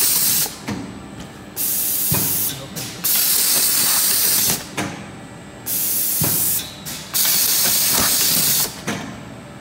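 12-station twin-head rotary tart machine cycling: loud bursts of compressed-air hiss, each about a second long with short pauses between, and a low thud now and then as the heads work.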